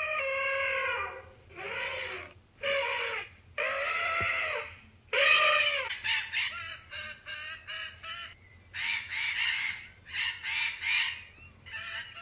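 Macaw squawking: a string of loud, harsh calls, the first few drawn out and the later ones short and quick.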